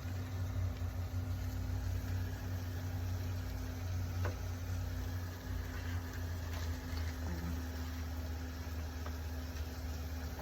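A steady low mechanical hum, like a motor or fan running, with a faint click about four seconds in.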